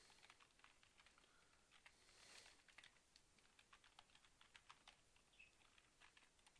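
Faint typing on a computer keyboard: a run of irregular key clicks, with a brief soft hiss about two seconds in.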